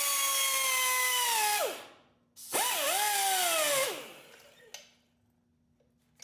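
Handheld pneumatic tool on an air hose run at full speed in two bursts, a high whine with air hiss, each winding down in pitch as the trigger is let go; the second burst dips and spins back up as it starts. A small click and a few light metal clinks follow near the end.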